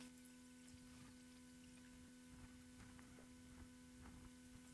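Near silence with a faint steady hum and a few faint ticks.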